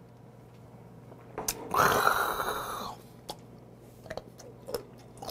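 A man exhales loudly and breathily for about a second after knocking back a shot of liquor. Soft chewing clicks follow as he eats.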